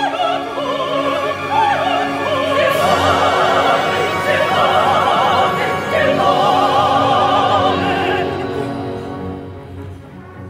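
Background music: an operatic voice singing with wide vibrato over an orchestra, fading out near the end.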